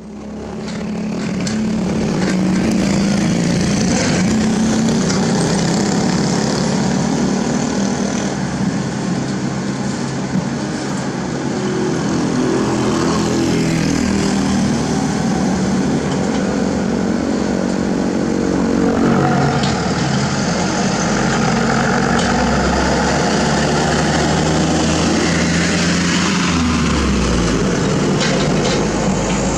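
Diesel engines of a mini excavator and a dump truck running, the excavator's engine note rising and falling under hydraulic load as it swings and dumps soil into the truck bed. A deeper rumble joins in about two-thirds of the way through.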